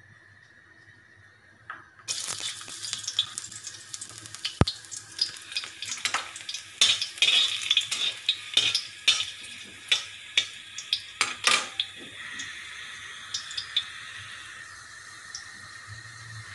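Garlic cloves dropped into hot cooking oil in a wok, setting off a sudden sizzle about two seconds in. Sharp pops and crackles of spattering oil follow for several seconds, then it settles to a steady sizzle.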